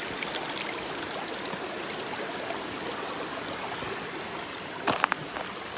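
Steady rushing of a mountain creek and waterfall, with a few sharp knocks about five seconds in.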